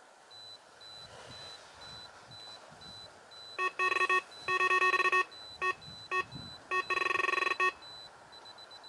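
Electronic carp bite alarm sounding in rapid beeping bursts of varying length, starting about a third of the way in, with the longest run of beeps near the end: line being pulled through a rod's alarm.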